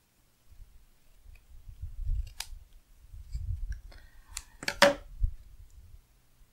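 Hands handling a paper planner sticker against the desk: low bumps and rubbing, with a few sharp crisp clicks of paper, the loudest about five seconds in.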